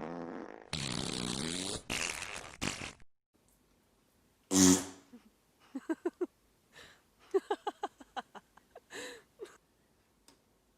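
A series of farts: a long noisy one over the first few seconds, a loud short blast about four and a half seconds in, then sputtering runs of quick pitched pops and two short bursts near the end.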